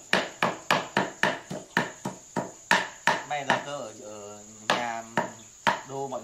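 Heavy cleaver chopping duck meat on a wooden chopping block: sharp strokes about three a second, a short pause about three seconds in, then three more chops.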